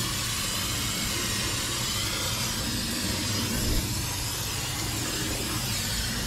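Aerosol can of brake cleaner spraying in one long steady hiss onto a new brake rotor and hub.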